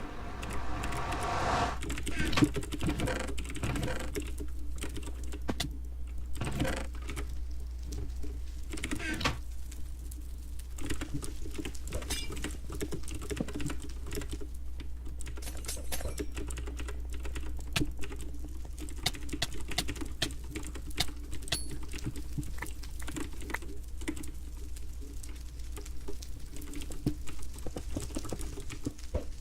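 Computer keyboard keys and mouse buttons clicking in quick, irregular runs, with a steady low hum underneath.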